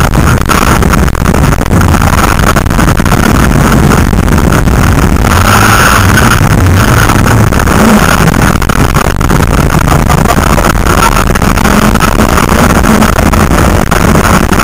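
Rally car engine running hard under full load, heard from inside the cabin, loud and unbroken throughout.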